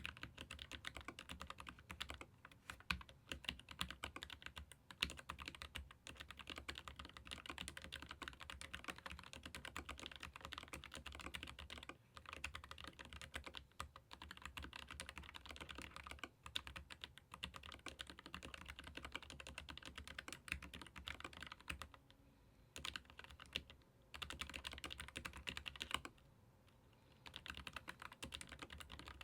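Continuous fast typing on a Keychron K15 Pro Max ergonomic mechanical keyboard with Gateron low-profile red linear switches: a dense clatter of keystrokes, broken by a few short pauses.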